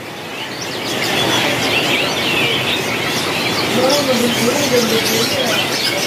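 A crowded cage of young Loper-type canaries twittering, with many short overlapping chirps and tweets. A voice is heard faintly in the background partway through.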